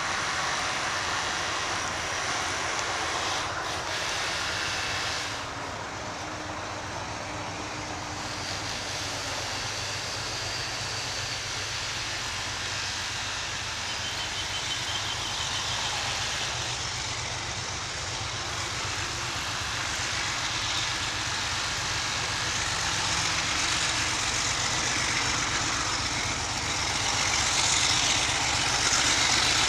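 Diesel-electric locomotive running with a steady low engine drone, growing louder near the end.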